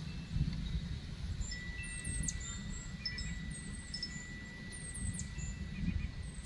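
Small birds chirping in short, high, repeated phrases every second or two, over a low wind rumble, with a thin steady ringing tone that begins about a second and a half in.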